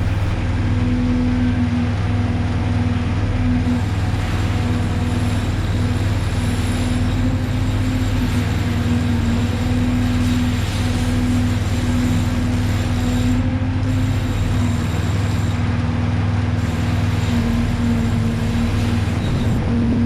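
Steady industrial machinery drone: a low hum with a held tone over an even hiss that changes little throughout.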